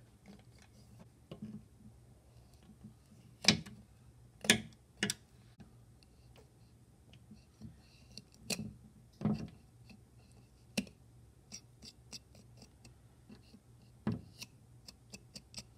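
Knife cutting around the head of a bullhead catfish on a plastic cutting board: irregular clicks, taps and a few sharper knocks of the blade against the skin and board, over a faint low hum.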